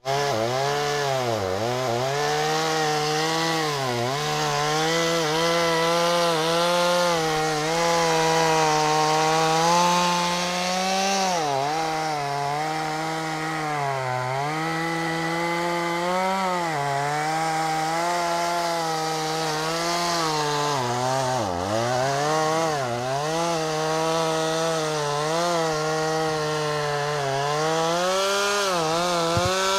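Two-stroke gas chainsaw running near full throttle while cutting through a thick tree limb. Its high engine note dips sharply again and again as the chain bites into the wood and bogs, then picks back up.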